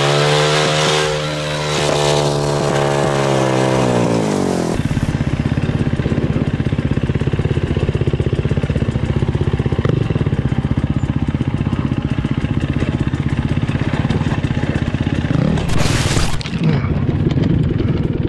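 Dirt bike engines. For the first few seconds a downed dirt bike's engine holds a steady high note, then dies away; after a cut a dirt bike runs along a trail with a rapid steady engine beat. About 16 seconds in a brief loud scraping crash as the rider goes down, with the engine still running afterwards.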